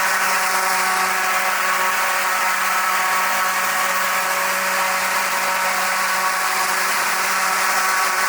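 Blower running at a constant speed, a steady motor whine over a rush of air, making strong artificial wind.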